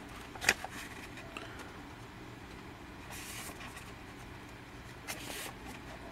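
Pages of a Blu-ray digibook being turned by hand: a sharp tap about half a second in, then two short paper swishes around three and five seconds in, over a low steady hum.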